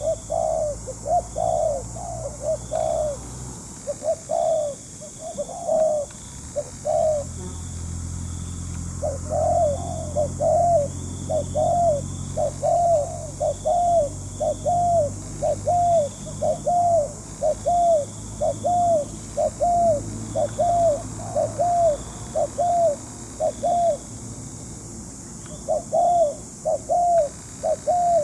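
Spotted dove cooing: a long series of short rising-and-falling coos, about two a second, broken by two brief pauses.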